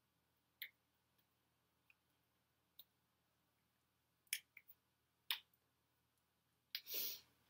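Scattered soft taps and clicks of hands meeting each other and the body while signing, about seven over several seconds, followed near the end by a short, louder rustle.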